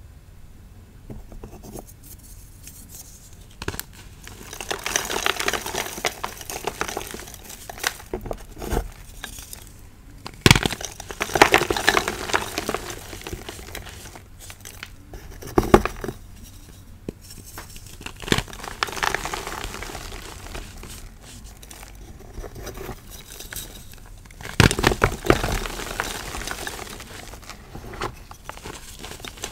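Fingers crushing dry re-formed gym chalk blocks: gritty crunching and crumbling in several bouts a few seconds apart, with sharp cracks as pieces snap, the loudest about ten, sixteen and twenty-five seconds in.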